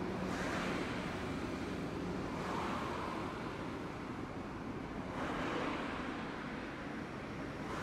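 Street traffic noise: vehicles passing in waves, about three swells, over a low steady hum that fades out about two seconds in.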